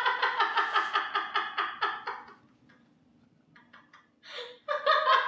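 A man laughing: a rapid run of "ha" pulses that tails off about two seconds in. After a short pause with faint breaths, another burst of laughter comes near the end.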